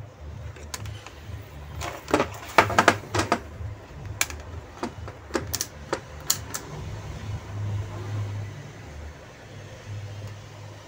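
A quick run of sharp clicks and taps from multimeter test probes and hands working on a washing-machine circuit board. They are densest about two to three and a half seconds in, then scattered until about six and a half seconds in, over a low hum.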